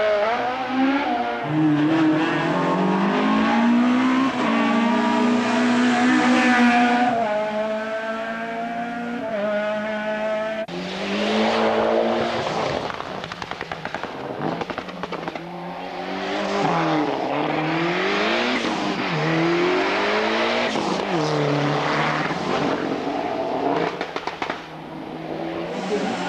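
Hillclimb race car engines at full throttle: one car accelerates away through the gears, its pitch climbing and dropping at each shift. About ten seconds in, a second car takes over, revving up and falling back again and again as it brakes and shifts down for the bends.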